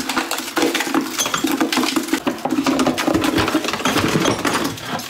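A disposable plastic bucket liner packed with hardened thin-set mortar being worked loose and pulled out of a plastic bucket. The plastic crackles and crinkles densely, with a steady low rubbing tone of plastic sliding against plastic underneath.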